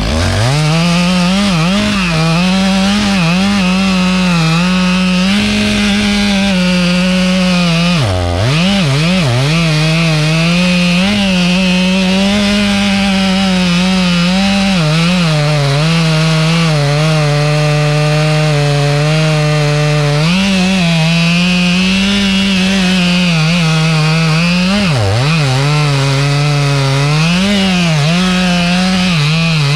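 Two-stroke chainsaw running at high revs under load, its pitch wavering as it cuts. The revs drop sharply about eight seconds in and again near the end, then climb back.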